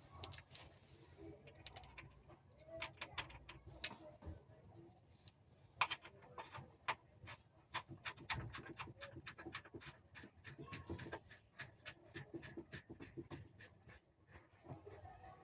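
A run of sharp metallic clicks and taps from hand tools at work, irregular at first, then settling into a steady run of about two to three clicks a second.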